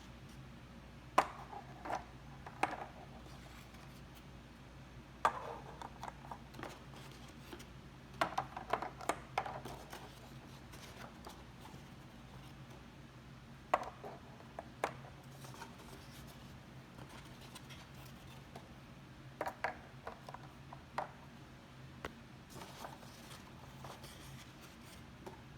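Food containers and packaging being handled while sorting groceries: scattered clicks and taps with short bursts of rustling and scraping at irregular moments, over a steady low hum.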